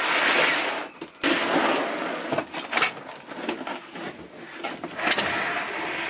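Cardboard box being slit open with a knife and its lid lifted: two long cardboard scrapes in the first two seconds, then scattered clicks and knocks, and another scrape near the end.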